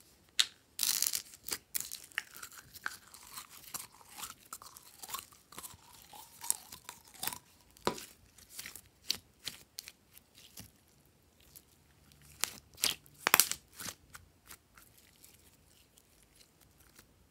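Yellow glitter slime being squeezed out of a plastic bottle and stretched by hand, making sticky clicks, pops and crackles. A squelch falls in pitch over the first few seconds, and a dense cluster of loud pops comes a little past the middle.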